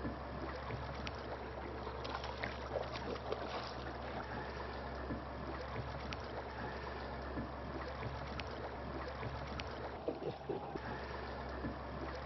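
Sound on board a small fishing boat: a steady low hum with scattered small knocks and clicks over a haze of water and wind noise.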